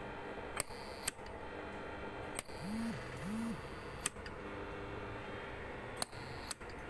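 Low steady hum with hiss, broken by about six sharp clicks, with two short rising-and-falling tones near the middle.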